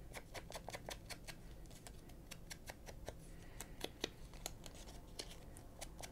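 Faint, irregular scratchy taps, several a second, of a foam ink blending tool being dabbed and worked against a paper photo strip to ink its edges.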